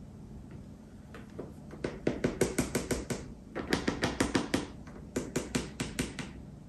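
A small handheld mesh sieve being tapped to sift flour into a mixing bowl: quick light taps, several a second, in three runs.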